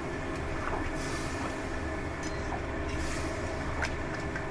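A spatula stirring potatoes and peas in a kadai of curry just topped up with hot water: a few light scrapes and taps over a steady rushing hiss from the stove and the cooking pot.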